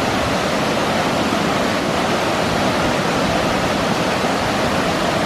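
Waterfall: steady, loud rush of falling water.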